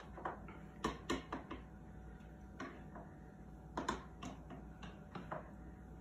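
Light, irregular clicks and taps against a brownie pan as a spatula and fingers move sausage crumbles about in its wells.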